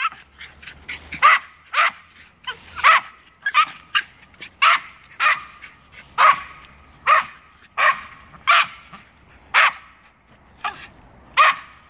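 Two Norfolk Terriers barking at a squirrel up a tree: a steady run of short, sharp barks, about one or two a second, with smaller yips in between.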